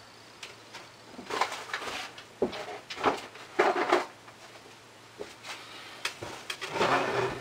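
Short knocks, rustles and scrapes of small objects being picked up and moved, a handful of separate bursts a second or so apart.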